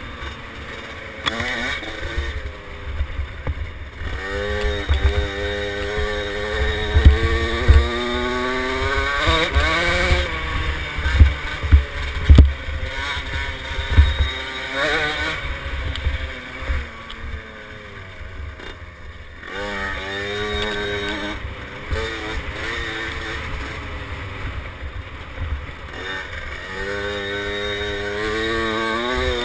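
KTM 50SX mini dirt bike's small two-stroke engine revving up and falling back again and again as it is ridden, over heavy low buffeting.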